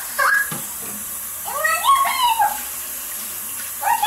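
Water running from a bathroom faucet into a sink, with high-pitched wavering calls over it: a short one near the start, then two longer rising-and-falling calls about two seconds apart. The calls are the loudest sound.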